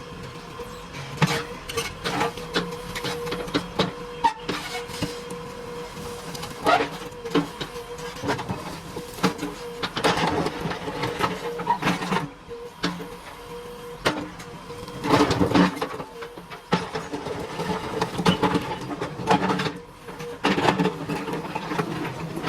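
JCB 3DX backhoe loader working: the machine runs steadily with a constant whine, while irregular clanks and knocks come through.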